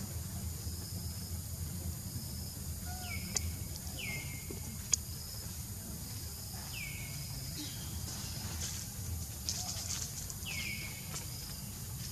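Outdoor animal ambience: four short calls, each sweeping down in pitch, over a high insect hum that pulses on and off. Two sharp clicks stand out in the first half, with a low rumble underneath.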